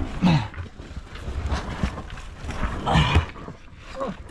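A person breathing hard with two loud grunts of effort, about a third of a second in and about three seconds in, amid low bumps and scuffs of a body and gear against rock while crawling through a tight, rocky cave passage.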